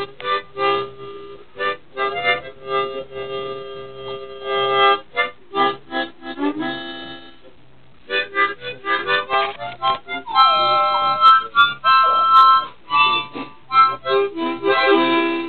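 Harmonica playing choppy chords, short blasts and a few held notes, with a brief pause about halfway. About two-thirds of the way through, a Border Terrier puppy's falling howl joins in.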